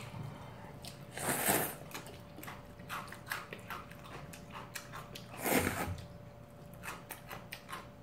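Two long slurps of spicy seafood naengmyeon cold noodles, about four seconds apart, with short wet chewing and lip-smacking clicks in between.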